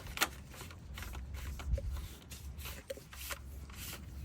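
Irregular rustling and scraping as electrical wire is handled and pushed through a homemade trenching knife.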